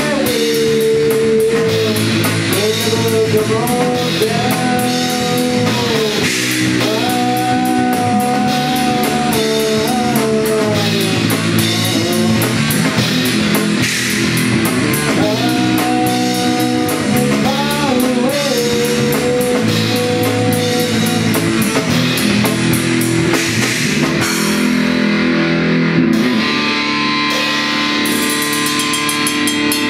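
Rock music with guitar and drums, a lead melody sliding and bending in pitch over the band; around three-quarters of the way through the lead line stops and the accompaniment changes.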